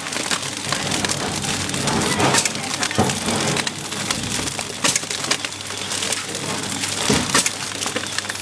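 PFM Hurricane flow-wrapping machine running as it wraps frozen food trays in plastic film: a steady hiss and low hum with frequent irregular sharp clicks and clatter.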